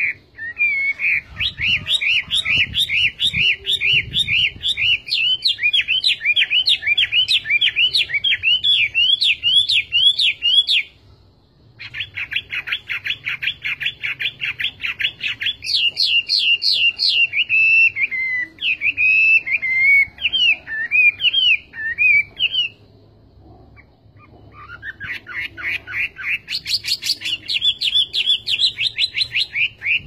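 Hwamei (Chinese hwamei laughingthrush) singing: long, loud runs of rapid, repeated whistled notes that sweep up and down, changing pattern from phrase to phrase. The song breaks off briefly twice, about a third and three quarters of the way through.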